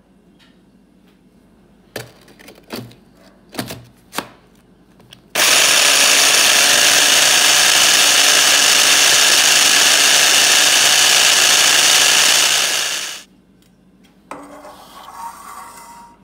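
Electric mini food chopper running steadily for about eight seconds, whirling a crumb, sugar and melted-butter mixture, then stopping. A few knocks and clicks come before it starts, as the motor lid is fitted onto the plastic bowl.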